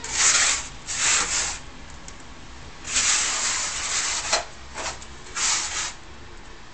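Hands rubbing moist semolina against the inside of a wooden bowl, working the grains for m'besses. The rubbing comes in separate strokes, the longest about three seconds in.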